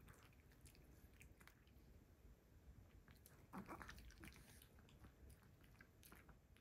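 Chihuahua chewing a piece of strawberry: faint, scattered chewing clicks and smacks, the loudest about three and a half seconds in.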